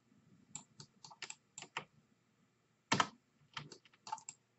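Computer keyboard keys clicking in short, irregular taps, with one louder press about three seconds in.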